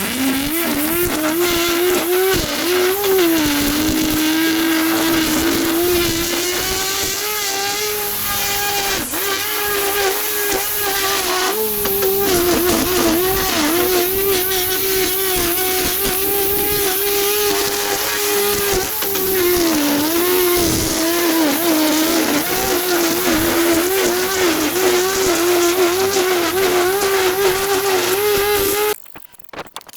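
Line trimmer running at high speed, its whine dipping in pitch again and again as it bogs under load while cutting, then picking back up. It starts suddenly and cuts off suddenly near the end.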